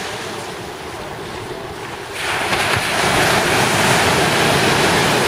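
Ocean surf on a sandy beach: a steady wash of small waves, then about two seconds in a wave breaks close by and the rush of white water stays loud.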